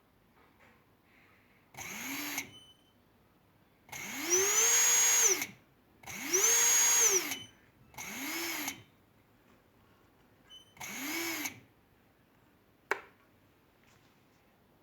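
Electric motors of an Eachine Racer 250 Pro quadcopter racing drone spinning up in five short throttle bursts, the whine rising in pitch and falling back each time; the two middle bursts are the longest and loudest. A single sharp click follows near the end.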